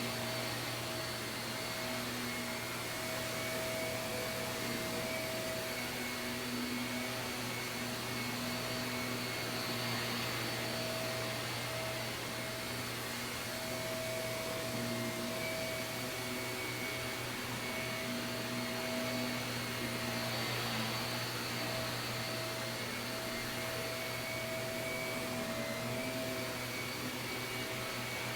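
Shark vacuum cleaner running continuously on carpet: a steady rushing hiss of airflow with a constant motor whine whose tones waver slightly now and then.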